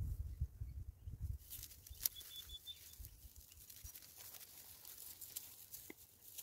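Dry grass rustling and crackling as it is scrunched and twisted by hand into a tinder bundle, with many crisp little snaps from about a second and a half in. A low rumble comes first.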